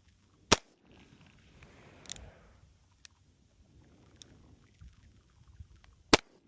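Two gunshots from a .357 Magnum revolver fired double-action, about five and a half seconds apart, with a much fainter crack about two seconds in.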